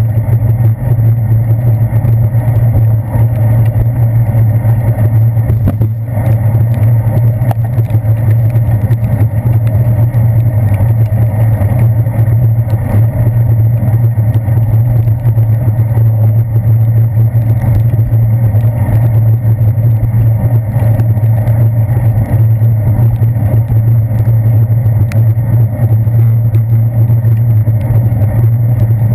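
Loud, steady low rumble of wind and road vibration on a handlebar-mounted GoPro Hero 2 as a bicycle rides along a wet road.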